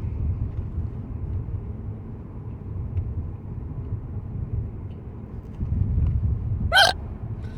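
Steady low rumble of a moving car heard from inside the cabin, with a single sharp hiccup from a person near the end.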